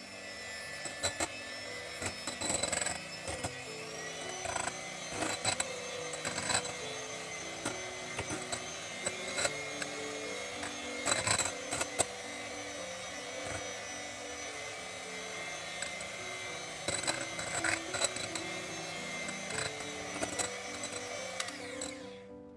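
Electric hand mixer running steadily at speed, its twin beaters whipping egg whites and sugar into meringue in a glass bowl, with scattered sharp knocks. The motor cuts off near the end.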